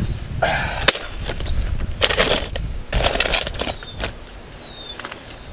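Stacked plastic RV leveling blocks and a steel bottle jack being handled on asphalt: a few scrapes and knocks, with one sharp click about a second in, as the blocks are set under the jack.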